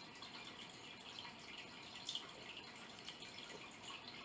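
Faint sipping and swallowing as someone drinks fruit punch from the flip-open nozzle of a plastic drink bottle: a few small wet clicks over quiet room tone.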